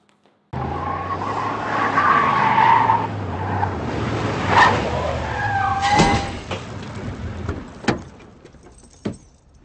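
Ford F-150 SVT Lightning pickup's supercharged V8 running as the truck pulls up, with tyre squeal as it is brought to a stop. The engine sound fades out and two sharp clicks follow near the end.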